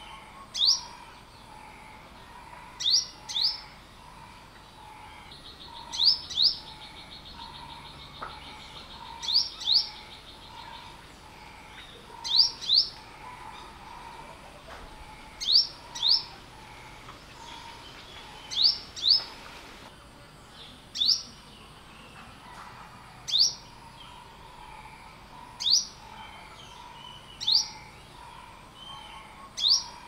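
Olive-backed (yellow-bellied) sunbird calling: short, sharp, high chirps, often in quick pairs, repeated every two to three seconds. A faint fast trill runs under the calls for a few seconds near the start.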